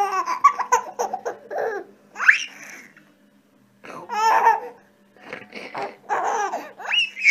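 A baby laughing in bursts of giggles and high rising squeals, with a short pause about three seconds in.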